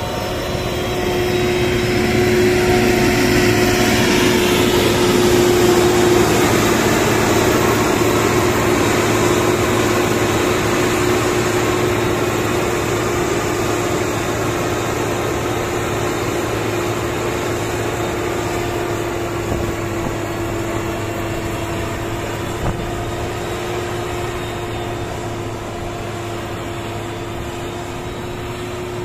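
XCMG motor grader's diesel engine running steadily as the grader drives past, growing louder over the first few seconds and then slowly fading as it moves away.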